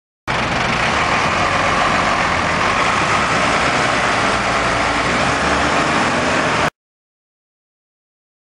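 Diesel engine of a red London Routemaster double-decker bus running in street traffic: a steady engine rumble with traffic noise that begins abruptly and cuts off suddenly after about six seconds.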